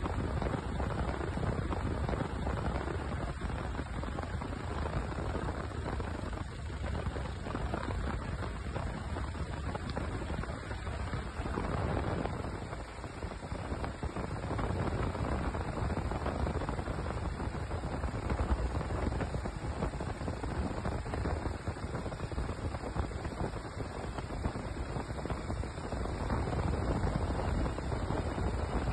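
Helicopter rotor and engine noise with rotor wash buffeting the microphone: a steady, dense rushing with a chopping quality under it.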